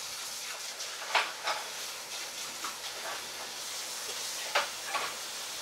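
Stir-fry food sizzling steadily in a hot pan, with a few scattered pops and crackles.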